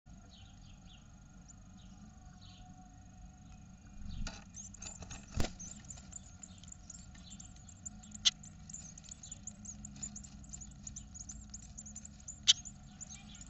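Great tit nestlings in a nest box begging: faint cheeps at first, then a rustle about four seconds in as the parent arrives, after which they give dense, rapid high-pitched calls. Three sharp knocks stand out, the loudest sounds.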